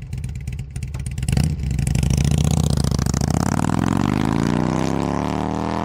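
Motorcycle engine running at a steady idle, then from about a second and a half in revving up in one long, steady climb in pitch.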